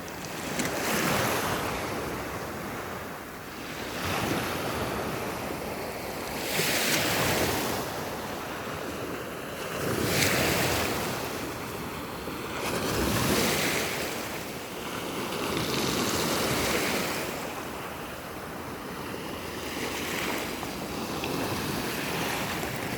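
Black Sea waves washing in, the noise swelling and falling away about every three seconds, with wind on the microphone.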